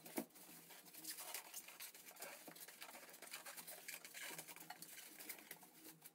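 Faint crinkling of a loose plastic bag and rubbing of polystyrene foam packing being handled, a scatter of small crackles with one sharper click just after the start.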